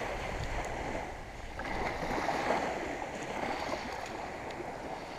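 Small waves washing up onto a sandy beach in shallow surf, with a swell of wash about two seconds in.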